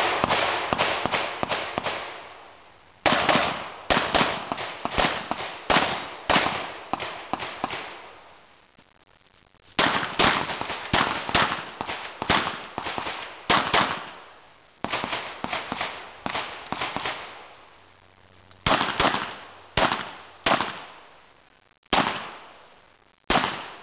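CZ 75 SP-01 Shadow 9mm pistol firing a USPSA stage: rapid shots, mostly in quick pairs, come in several strings separated by pauses of one to two seconds as the shooter moves between positions. Each shot has a short echo.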